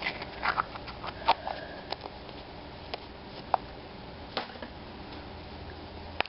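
A small plastic surprise-egg capsule being pried open and handled with the fingers: scattered plastic clicks and taps, with a few sharp snaps.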